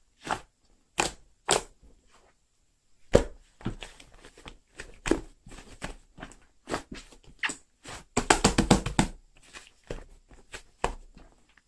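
Clear slime being squished and poked by hand: scattered sticky pops and clicks, then a quick run of crackling pops about eight seconds in.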